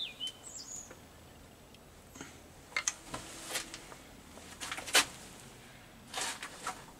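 Scattered small metal clicks and knocks from a bearing cap being fitted over the crankshaft of a Reliant 850 engine, with the sharpest click about five seconds in.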